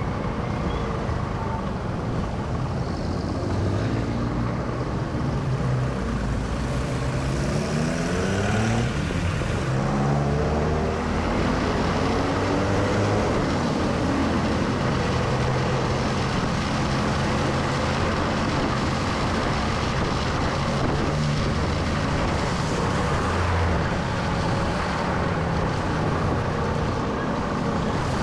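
Motorcycle engine running under way on a wet road, with the hiss of tyres on the wet surface. The engine pitch rises several times in a row about a third of the way in as it accelerates, then settles into steady cruising.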